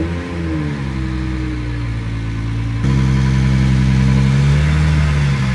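Toyota Chaser JZX100's turbocharged 1JZ-GTE straight-six running at low revs as the car creeps up a driveway. There is a brief blip of revs at the start, it is louder from about halfway, and the revs rise gently near the end.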